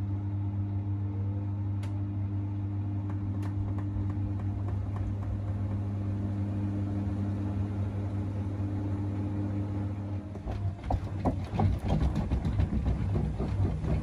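A steady low machine hum, unchanging for about ten seconds. Then a voice begins over a rougher, uneven sound.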